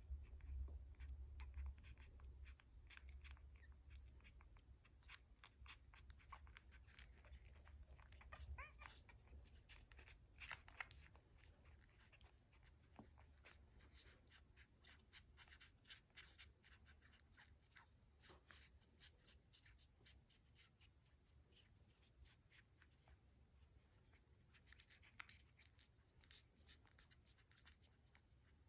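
Faint, scattered little wet clicks and smacks of newborn dachshund puppies suckling at their mother, over a low rumble that fades away.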